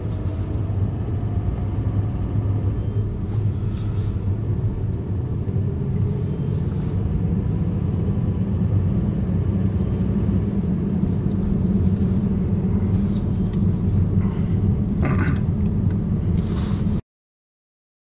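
Strong gusty wind buffeting the microphone: a steady low rumble that cuts out completely for about a second near the end.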